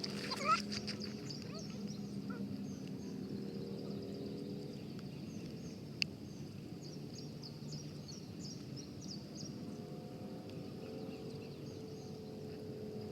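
Birds calling outdoors: short high chirps repeating through, with a brief honking call at the very start, over a low steady drone. One sharp click about six seconds in.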